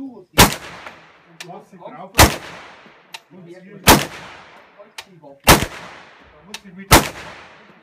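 Five shots from a semi-automatic AR-15 rifle in .450 Bushmaster, firing handloaded cast lead bullets, at a steady pace of about one every one and a half to two seconds. Each shot has a long echoing tail.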